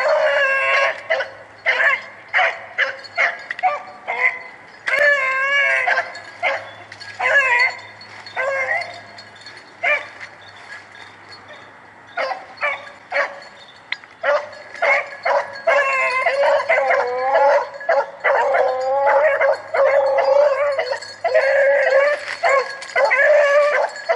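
Rabbit hounds baying in repeated bouts of wavering yelps and howls, the sound of dogs running a swamp rabbit's trail; the baying eases off for a few seconds near the middle and then picks up again.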